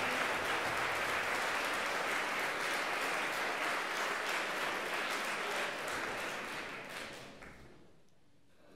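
Audience applauding: steady clapping that thins out and dies away over the last couple of seconds.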